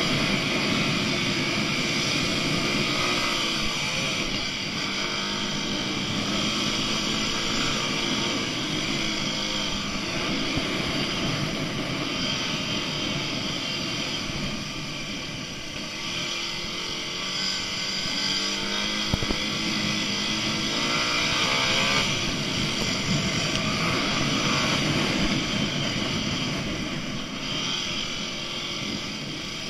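Dirt bike engines revving, their pitch rising and falling over and over as the riders accelerate, shift and ease off, under steady wind noise.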